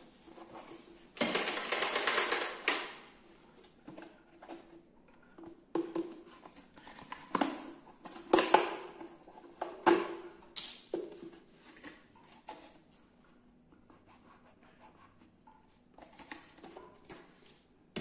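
Plastic water reservoir of a Philips Senseo coffee machine and its parts being handled: a loud scraping rattle about a second in, then a string of sharp plastic clicks and knocks, fading to light handling noise near the end.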